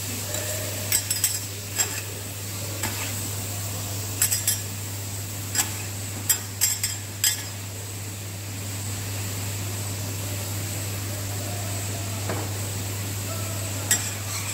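Metal spatulas clinking and scraping on a steel flat-top griddle as shredded cabbage and vegetables sizzle, under a steady low hum. The sharp clinks come in quick clusters during the first seven seconds, then mostly the sizzle goes on alone.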